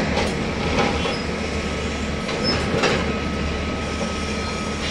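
Heavy diesel excavator engines running steadily as the machines work rock, with a few sharp knocks, about three, of stone or the bucket.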